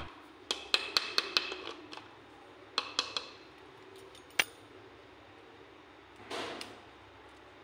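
Crisp deep-fried flour snacks tapped and dropped onto a ceramic plate, a run of hard clicks and clinks in the first few seconds and a single click a little after four seconds; about six seconds in, one is snapped apart with a short crunch. The hard, clicking sound shows the snacks are very crispy.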